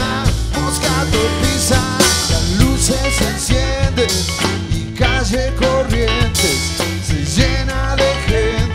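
A rock band playing live: a drum kit keeps a steady beat under guitars, with a melodic line over the top.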